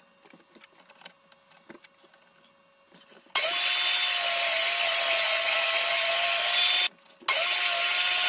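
A few small clicks and knocks of the slab and clamps being handled, then, a little over three seconds in, a table saw comes in suddenly and runs loud and steady with a high motor whine as a live-edge slab is ripped on a sled. The sound cuts out for a moment near the end and comes back.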